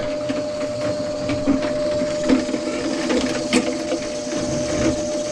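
Motorized drain-cleaning machine running steadily, with irregular knocks and rattles from its cable working through the clogged drain pipe.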